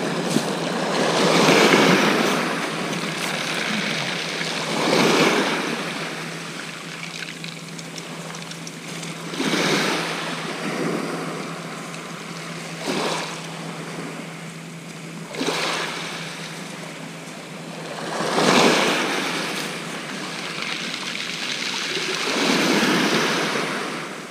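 Small waves breaking on a shingle beach and washing back over the pebbles, surging about every three to four seconds.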